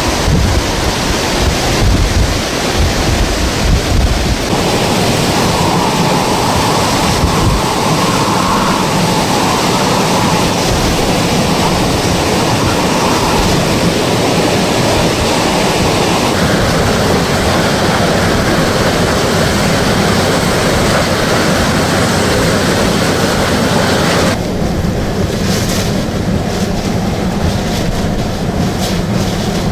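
Hurricane-force wind and driving rain, a continuous loud rushing noise with the wind buffeting the microphone. Its character changes abruptly three times as the footage cuts between scenes.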